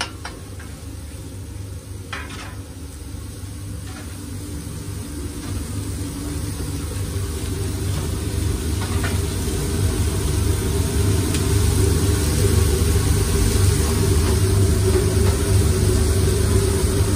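Food sizzling on a flat-top griddle over a steady low hum, growing gradually louder, with a few faint taps of a metal spatula or tongs.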